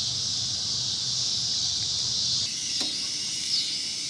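Evening insect chorus, a steady high-pitched trill, with a faint low hum beneath it for the first couple of seconds.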